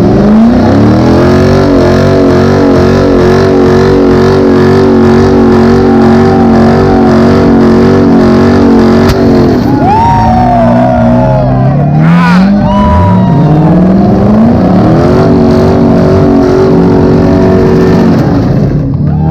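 Car doing a burnout: the engine revs up and is held at high, steady revs for about nine seconds, drops off with tires squealing, then revs up and holds again. A sharp bang about twelve seconds in, which onlookers take for the tire popping.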